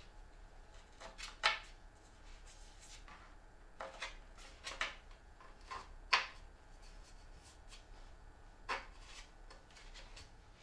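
Light handling clicks and taps as a small steel bolt is fitted into a hole in a plywood board: about half a dozen sharp clicks, the loudest about six seconds in as the bolt is pressed home.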